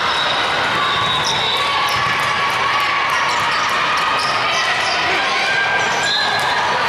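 Indoor volleyball play in a large gym hall: sharp ball contacts and short high squeaks ring out over a steady background of crowd chatter and hall noise.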